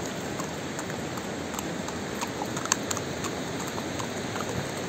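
Steady rushing noise of a fast mountain river, with a few scattered light clicks, the sharpest a little after halfway.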